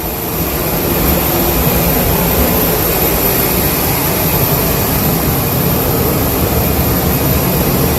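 Jet aircraft engines running: a steady rumble with a thin, steady high whine above it.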